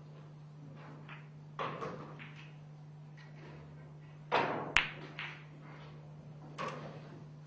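Pool shot: the cue tip strikes the cue ball, and about half a second later the cue ball hits an object ball with a sharp click, followed by fainter knocks of balls rolling into the cushions. There is a softer knock a couple of seconds before the shot, and a steady low hum runs underneath.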